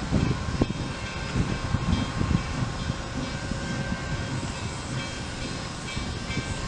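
Nickel Plate Road 765, a 2-8-4 Berkshire steam locomotive, working toward the station, heard as a steady low rumble with uneven pulses of exhaust.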